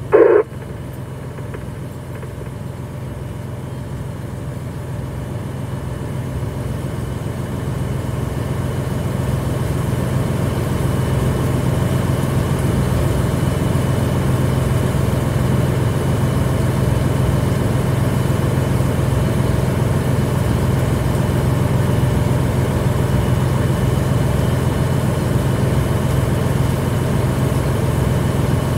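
Fire engine's diesel engine running steadily at the scene, getting louder over the first ten seconds or so and then holding at a steady level, as when the apparatus is pumping water on hose lines.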